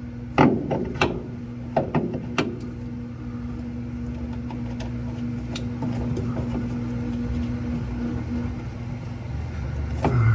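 Clicks and knocks of metal parts being handled and fitted on a Maytag Bravos washer's drive, mostly in the first two seconds or so, with a few lighter ticks later. A steady low hum runs underneath.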